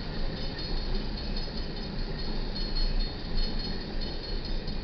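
Empty coal hopper cars of a freight train rolling steadily past, a continuous rumble of steel wheels on rail.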